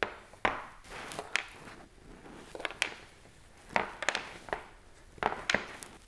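Sharp plastic clicks and light knocks of a Microfleur microwave flower press being handled on a wooden table as its clips are pulled off, about a dozen in irregular succession.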